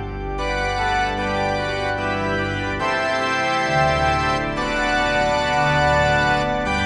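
Organ playing sustained chords over a bass line, the chords changing every second or two: a church prelude.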